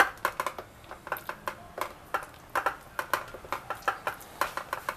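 Moist hands pressing and stretching soft focaccia dough in an oiled metal baking tray: a run of small, irregular sticky clicks, a few a second.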